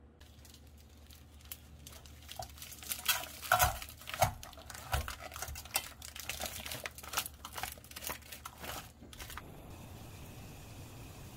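Plastic stew pouch crinkling and crackling as it is handled and squeezed out into an aluminium pot, with the loudest crackles a few seconds in; near the end the crackling stops and a faint steady hiss is left.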